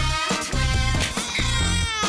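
Upbeat cartoon theme music with a steady, funky bass beat and melody.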